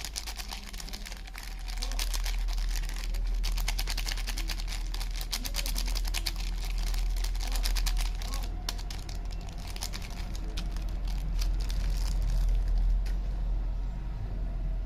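Soap packaging being handled and unwrapped close to the microphone: a dense run of quick crinkles and clicks that stops a couple of seconds before the end, over a steady low hum.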